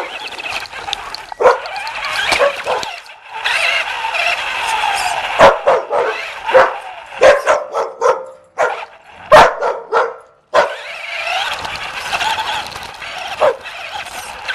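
A puppy barking and yipping excitedly, with whining in between. Sharp, loud knocks come at intervals.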